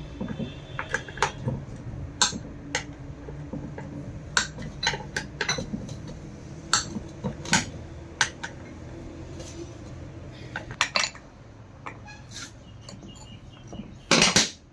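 Metal tools and pump parts clinking and knocking irregularly as the pump is worked on, over a steady low hum, with a longer, louder clatter near the end.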